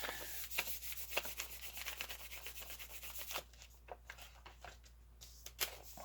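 Paper being rubbed and handled: a dry scraping rustle with many small ticks for about three and a half seconds, then softer, sparser handling with one sharper tick near the end.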